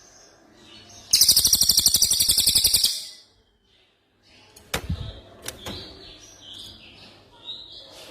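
Songbird song from a bird-song mastering recording: a loud, rapid rolling trill (a 'rol tembak') of about fifteen notes a second, lasting about two seconds. After a brief gap come softer assorted chirps and short high whistled phrases.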